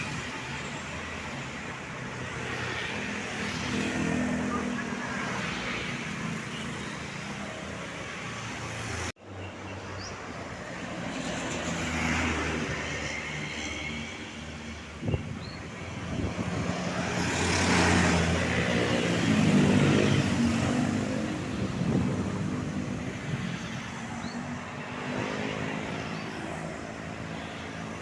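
Roadside traffic with vehicles passing, engine and tyre noise rising and falling. The loudest pass comes about two-thirds of the way in. The sound cuts out for an instant about a third of the way in.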